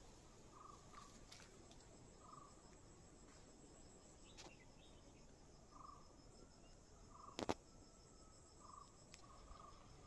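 Faint outdoor ambience: insects trilling steadily at a high pitch, with short chirping calls repeating every second or two. A single sharp click about seven and a half seconds in is the loudest sound.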